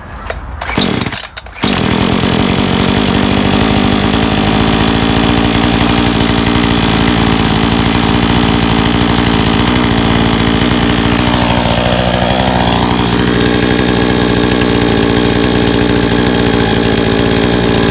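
Blue Max 57cc two-stroke chainsaw on its first start: after a pull on the starter cord, the engine catches about two seconds in and settles into a steady idle with the choke pushed in.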